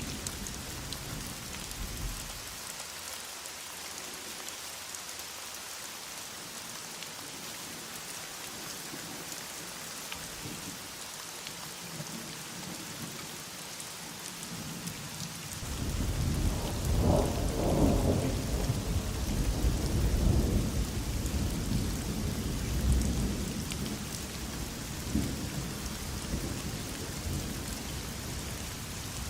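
Heavy rain falling in a steady hiss, with a long roll of thunder that swells about halfway through, stays loud for several seconds and slowly rumbles away; the tail of an earlier rumble dies out in the first two seconds.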